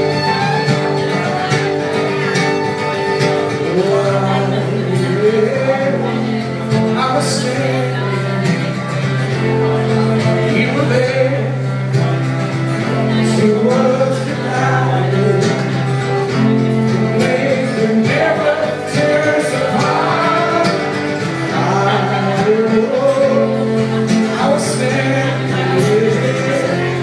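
Live song: an acoustic guitar strummed and a man singing, amplified through a small PA. The voice comes in about four seconds in over the steady guitar.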